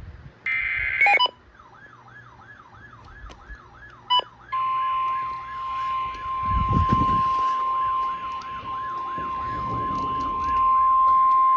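A short burst of EAS digital header data, then a fast wavering siren-like alert tone, about three sweeps a second. About four seconds in, the steady 1050 Hz NOAA Weather Radio warning alarm tone starts over it and holds to the end. A low rumble comes and goes midway.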